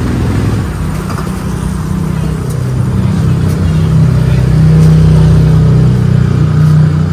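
An engine running steadily with a low hum, growing louder over the first few seconds.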